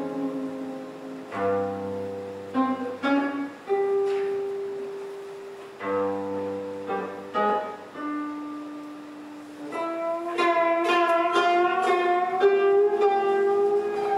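Twenty-string koto (nijūgen-sō) playing slow single plucked notes and low notes that ring out and fade. From about ten seconds in it plays a quicker, denser passage, with some notes bending in pitch.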